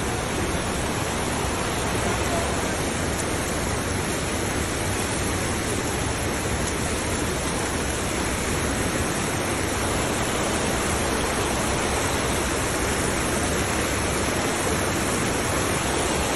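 Fast-running mountain creek rushing steadily over rocks and gravel.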